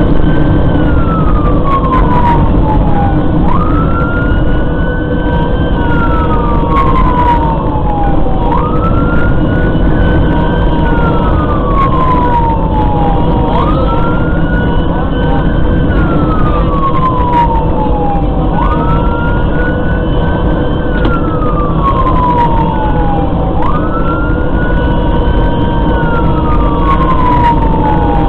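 Fire engine siren wailing in a repeating cycle about every five seconds, each cycle rising quickly in pitch and then falling slowly, over loud engine and road noise heard from inside the moving engine's cab.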